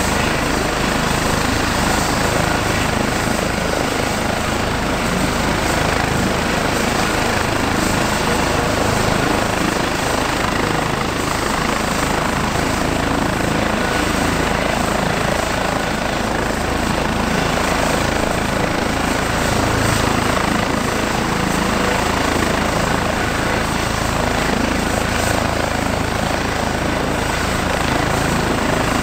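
Airbus H135 twin-turbine helicopter running on the ground with its main rotor turning. A steady, unbroken turbine and rotor noise with a faint steady whine over it.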